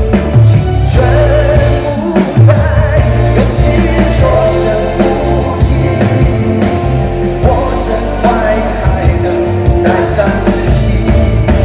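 A man singing live into a hand microphone over loud rock accompaniment with drums. His voice comes in about a second in.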